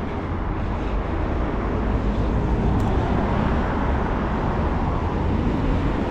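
Steady rushing noise with a low rumble, with no distinct events.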